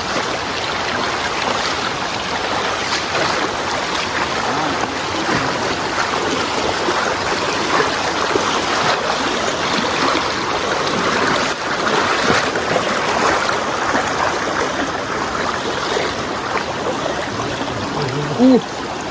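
Stream water flowing, a steady rushing wash of water noise.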